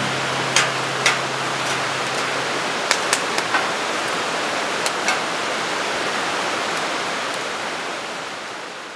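Wood campfire crackling, with scattered sharp pops over the first half, against a steady rushing hiss that fades out near the end.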